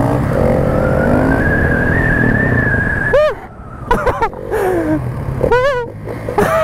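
Single-cylinder supermoto engine revving hard under acceleration, its pitch climbing over about a second and then held high before it drops off about three seconds in, with wind rush over the microphone.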